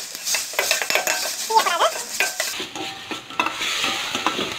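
A metal ladle scraping and clinking against a stainless steel kadai as onion and ginger-garlic paste is stirred, with the paste sizzling in hot oil.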